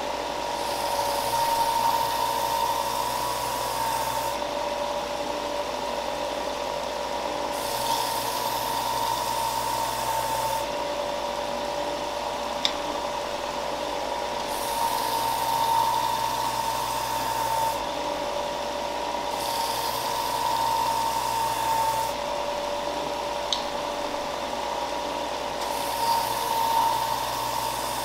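Benchtop belt sander running steadily. A wooden block is pressed against the moving belt in about five passes of three to four seconds each, and each pass adds a hiss of sanding over the motor's hum. Two short sharp clicks fall between passes.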